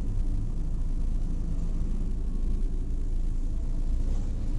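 Steady low rumble of a car waiting at an intersection, heard from inside the cabin through a dashcam: the car's engine idling under the noise of passing traffic.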